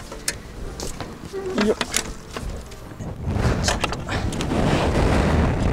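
Sharp clicks and knocks as a riding mower's latched engine cover is worked free, then a few seconds of steady scraping, rattling noise as the cover is swung up off the engine.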